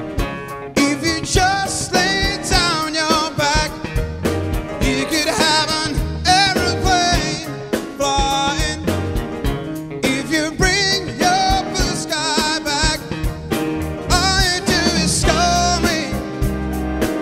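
Male vocalist singing live with a big band: grand piano, saxophones and horns, guitar and drum kit keeping a steady beat.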